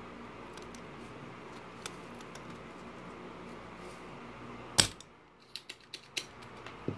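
Spring-loaded desoldering pump firing once, about five seconds in: a sharp snap as the plunger releases and sucks molten solder off a speaker terminal. A few lighter clicks follow.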